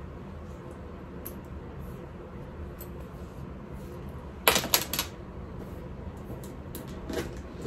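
A quick cluster of sharp clicks about four and a half seconds in, then a softer click near the end, over a low steady room hum: the metal clasps on the ends of a leather bag strap clicking as the strap is handled.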